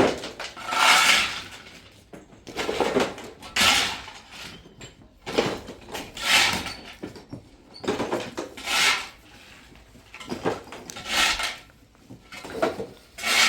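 Metal clanking and scraping in repeated short bursts, about one every one to two seconds, as metal parts are handled and worked.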